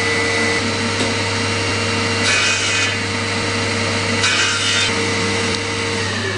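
Radial arm saw running with a steady motor whine, its blade cutting through wood twice, at about two and four seconds in, each cut a brief louder, brighter rasp over the motor.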